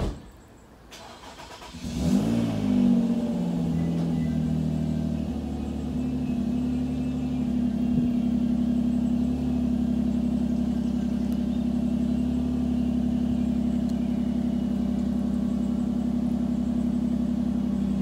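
A short knock, then about two seconds in a vehicle engine cranks and catches, revs briefly and settles into a steady idle.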